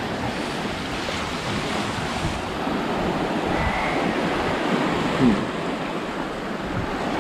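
Small waves breaking and washing in foam over rocky shallows at the shoreline, a steady surf noise with one short louder moment about five seconds in.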